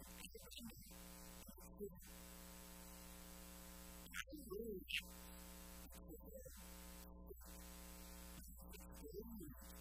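Faint, steady electrical hum with a buzz of many overtones. A faint voice breaks in briefly a few times, most strongly about four seconds in.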